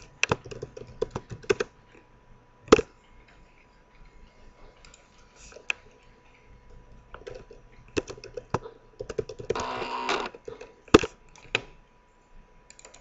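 Computer keyboard typing in short irregular bursts of key clicks, over a faint steady tone.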